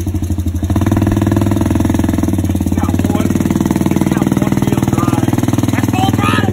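Sport quad's (ATV's) engine running steadily close by, its firing pulses coming evenly; it grows louder just under a second in.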